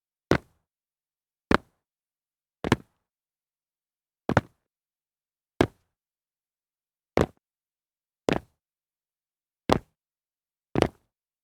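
Jumps landing on concrete, a Foley recording: nine sharp landings about one to one and a half seconds apart, some doubled into two quick hits, with silence between.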